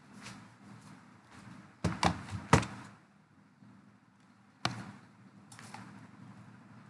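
A few sharp knocks over a faint steady background: three close together about two seconds in, then a single one near the five-second mark.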